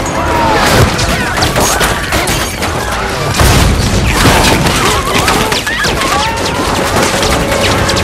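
Film battle sound mix: rapid gunfire and repeated booming impacts, with people screaming and shouting as they flee.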